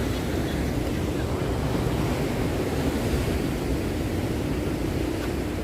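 Ocean surf breaking on a beach, a steady low rush mixed with wind on the microphone.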